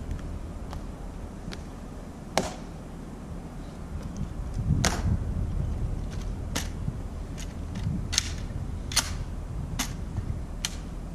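Sharp, irregular clicks of the Tomb sentinels' metal-tapped heels striking the stone plaza as they march, over a steady low rumble.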